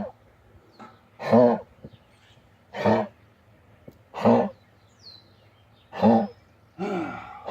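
A dog barking in short, hoarse single barks, about one every second and a half.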